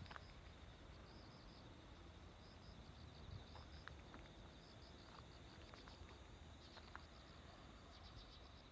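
Near silence with faint insect chirping: short high chirps repeating in small clusters about once a second.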